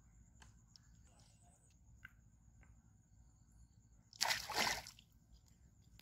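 A hooked fish splashing at the water's surface as it is struck and pulled up on a rod and line: one short, loud splash about four seconds in.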